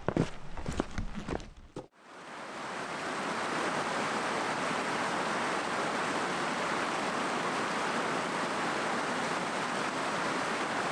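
Steady rush of flowing water that fades in about two seconds in and then holds even, after a few short knocks at the start.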